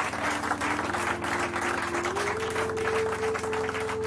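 A group of people applauding, many hands clapping unevenly, over soft background music with long held notes that step up in pitch about two seconds in.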